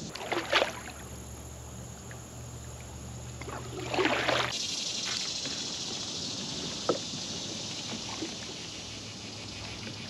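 Water lapping and splashing around a fishing kayak, with two louder splashes, one about half a second in and one about four seconds in, and a few light knocks later on.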